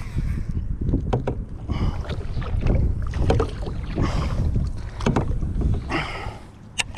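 Water slapping and swishing against a small plastic fishing kayak's hull in surges about once a second, with wind rumbling on the microphone. A few sharp clicks come through, the loudest near the end.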